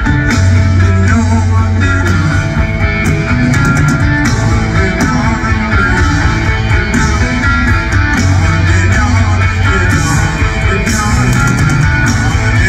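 A live rock band playing electric guitars, bass and drums through a large concert PA, heard from among the audience.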